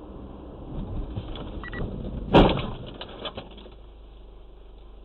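Dashcam recording from inside a car: steady engine and road noise, then about two and a half seconds in one sudden loud bang, a car-to-car collision, dying away with a few clicks and rattles.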